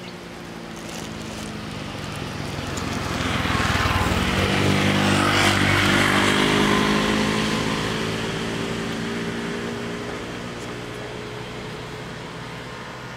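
A car driving past on the road: engine and tyre noise swell over a few seconds, peak around the middle, then fade away.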